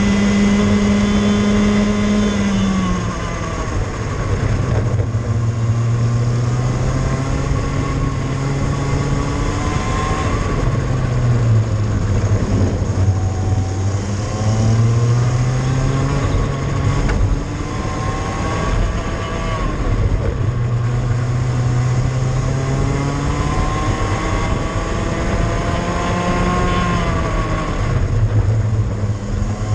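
Cadet kart engine running flat out on track, recorded onboard. Its note drops about three seconds in, then climbs and falls several times as the kart accelerates out of corners and the revs ease off into the next ones.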